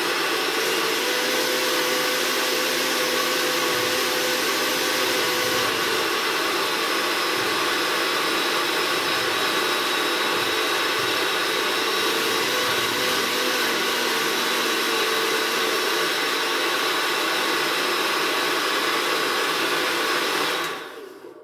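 Electric countertop jug blender running steadily at speed, mixing a thick fruit-and-vegetable smoothie; it is switched off near the end and the motor runs down.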